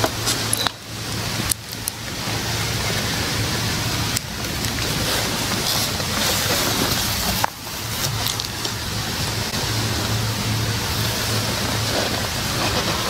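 Steady rustling hiss of wind through the trees, broken by a few brief clicks and sudden dips, the clearest about 7.5 seconds in.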